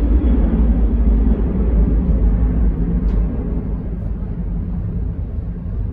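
Steady low rumble of a jet airliner's engines, muffled through terminal window glass, easing off a little in the second half.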